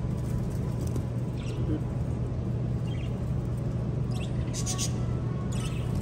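Budgerigars (parakeets) in a shop cage chirping: scattered short, high chirps, with a busier cluster of quick chirps about four seconds in, over a steady low hum.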